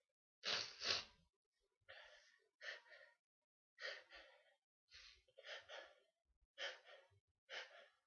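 A person sneezing over and over: about ten short, sharp sneezes in quick succession, many in pairs, the loudest pair about half a second in.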